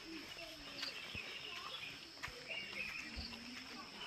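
Rural outdoor ambience: a steady high buzz of insects with birds chirping on and off. A few soft thumps are heard along the way.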